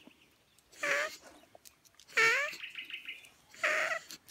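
Dog giving three short, high-pitched whining yelps, about a second and a half apart; the middle one rises in pitch.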